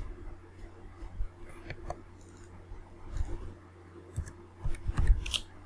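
Scattered clicks and taps of a computer mouse and keyboard, with a quick cluster of them near the end, over a steady low hum.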